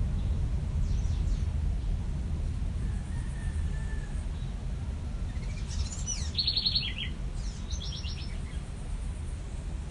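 Small birds chirping: a few faint chirps about a second in and a quick run of chirps about six to seven seconds in, over a steady low background rumble.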